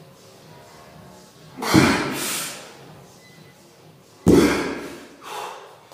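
Dumbbells set down hard on a rubber gym floor during push-ups with rows: two heavy thuds about two and a half seconds apart, each followed by a rush of hard breath.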